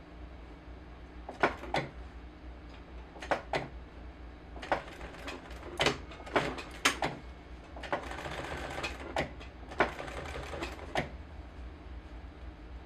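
Sewing machine making a dozen or so sharp, irregularly spaced clicks, with a short stretch of busier noise about eight seconds in.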